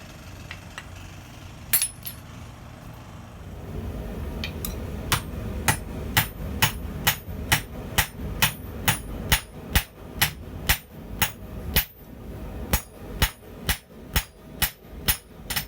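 Hammer blows on a top-and-bottom fuller, forging steel on the anvil: a single strike, then a steady run of ringing blows at about two a second starting about four seconds in, over a low steady rumble.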